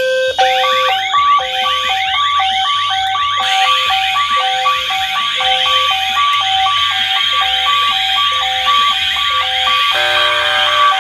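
A roomful of fire alarm horns, speakers and sounders from several alarm panels going off at once in a loud, layered din. Repeating stepped tones mix with rapid sweeping tones. More devices join about three and a half seconds in, and again near the end.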